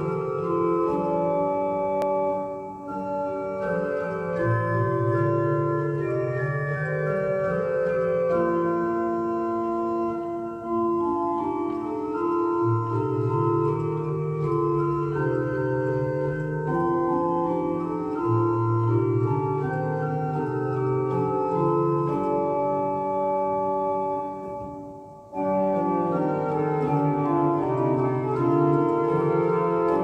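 Organ playing a hymn in sustained chords over a moving pedal bass, with short breaks between phrases, the longest about 25 seconds in.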